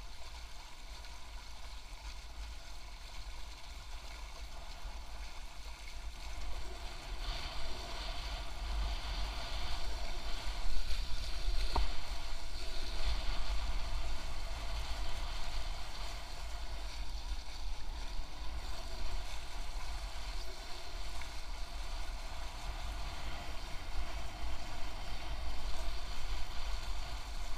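Wind buffeting the microphone and water rushing along an A-Class catamaran's hulls as it sails; the rush of water grows louder about seven seconds in. A single short click comes about twelve seconds in.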